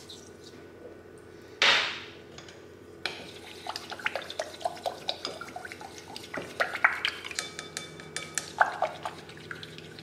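A thin utensil stirring a wet yogurt, milk and yeast mixture in a glass bowl: a quick, uneven run of small clicks and taps against the glass begins about three seconds in, with the bowl ringing briefly around seven seconds in. A short burst of noise comes about two seconds in.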